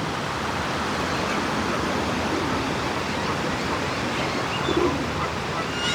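Steady rushing noise with no clear beginning or end.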